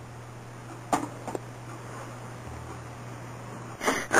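A cat pawing at a cardboard pizza box: two light taps about a second in and a louder rustle near the end, over a steady low hum.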